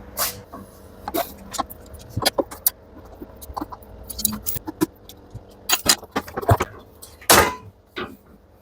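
Hand tools and metal parts of a washing machine clinking and knocking during disassembly: a string of sharp clicks and clunks, with a longer, louder clatter about seven seconds in.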